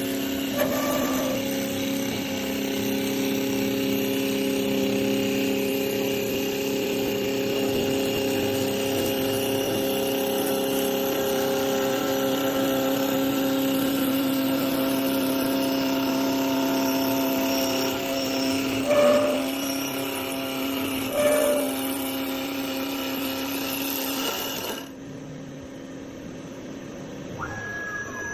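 Cue-turning woodworking lathe running with a steady, multi-tone machine whine, with two brief louder bursts in the second half. The machine sound drops away sharply about 25 seconds in.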